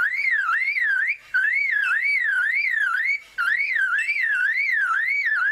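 Superb lyrebird mimicking a car alarm: a whistle warbling up and down about three times a second, in three long phrases broken by short gaps.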